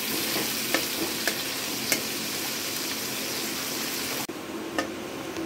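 Sliced onions sizzling in hot mustard oil as they fry, stirred with a metal spatula that clicks against the pan a few times. A little past four seconds in the sizzle drops suddenly to a quieter level.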